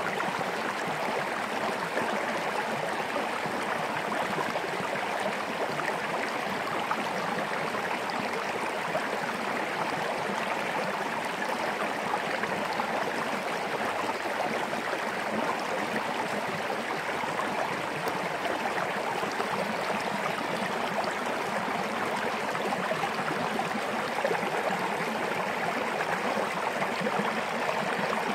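Small stream flowing steadily over rocks, a constant rushing of water.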